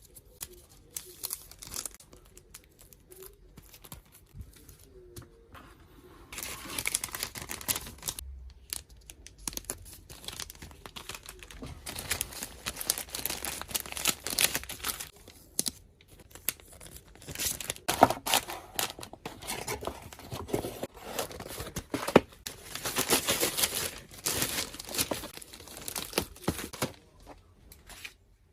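Tape being pulled off a roll and wound, with plastic packaging crinkling, in irregular bursts of a second or two; only light clicks and handling for the first few seconds, busier in the second half.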